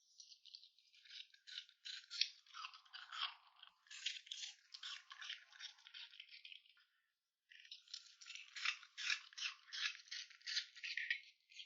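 Dog eating from a plate, with rapid faint crunching and licking in three runs separated by short pauses.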